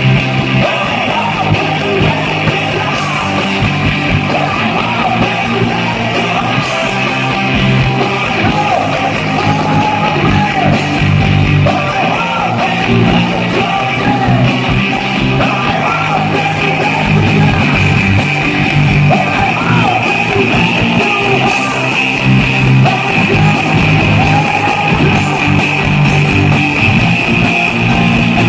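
Live rock band playing loudly, with electric guitar and a singing voice.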